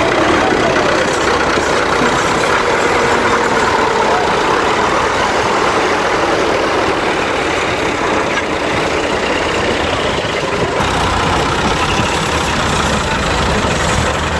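Diesel farm tractor engines running steadily and loud while hitched to a stuck, sugarcane-loaded trolley to pull it out of the mud.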